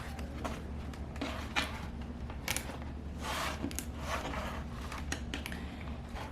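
Plastic clicks and rustling from a laptop's screen bezel being pressed and snapped back into place on the lid, a few sharp snaps among softer handling noises, over a low steady hum.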